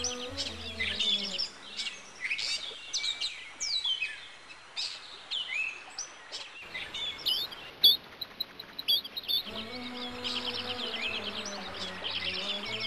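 Songbirds chirping and twittering, many quick calls sweeping up and down in pitch, over gentle background music that fades out about two seconds in and returns near the end.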